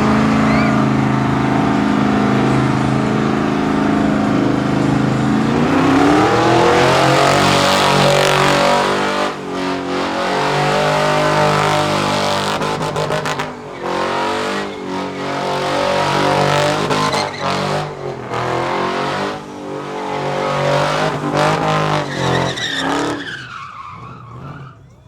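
Car doing a burnout: the engine is held at high revs with tyres squealing. The revs climb, then rise and fall repeatedly as the throttle is worked, and die away near the end.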